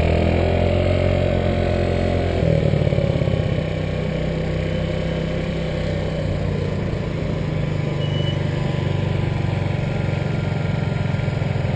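An engine running steadily, its pitch shifting about two and a half seconds in.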